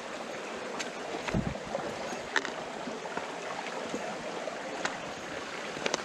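Shallow forest stream trickling over stones, with scattered sharp clicks of footsteps on rocks and a low thump about one and a half seconds in.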